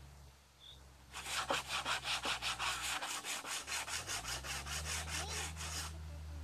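Hand saw cutting through a wooden board in quick, even back-and-forth strokes, about four a second. It starts about a second in and stops near the end.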